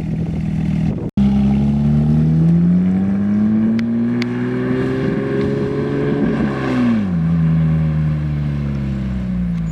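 Car engine under acceleration: its pitch climbs steadily for several seconds, drops quickly about two-thirds of the way through, then holds steady.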